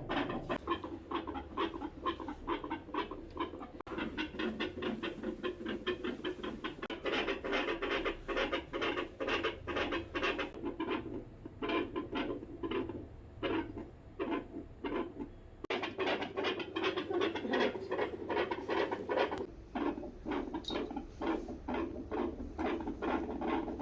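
A dog's heart and chest heard through a stethoscope: a fast, regular run of short beats, several a second.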